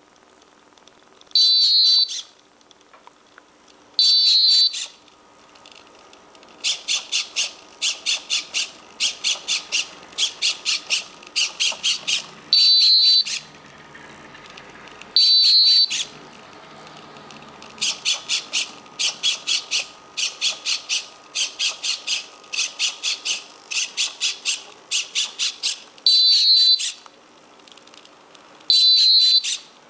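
Piezo buzzer on a homemade walking insect robot chirping again and again: some chirps last about a second on a steady high tone, others come as runs of short rapid beeps, about two to three a second. The chirp is the robot's signal that its ultrasonic sensor has found an object less than 10 inches ahead. A faint whir of its servos runs underneath.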